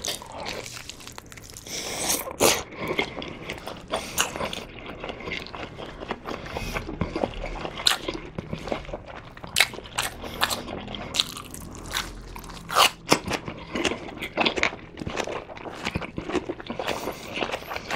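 Close-miked biting into and chewing of a whole Korean blood sausage (sundae), with a sharp bite through the casing every few seconds between stretches of chewing.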